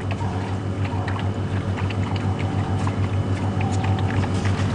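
A vehicle engine idling with a steady low hum, with faint scattered clicks and small splashes over it.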